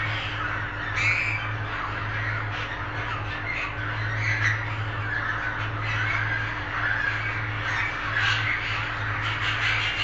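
Budgerigars chattering and warbling continuously, many short chirps overlapping, over a steady low hum.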